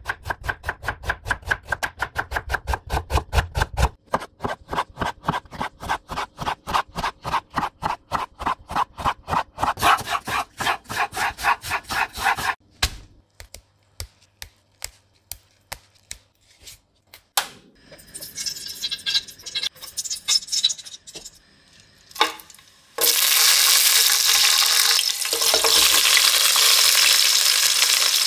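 A knife slices onion on a bamboo cutting board in quick, even strokes for about twelve seconds. Then come scattered taps and a rustle as mint leaves are handled. Near the end, sliced onions go into hot oil in a pot and sizzle loudly and steadily.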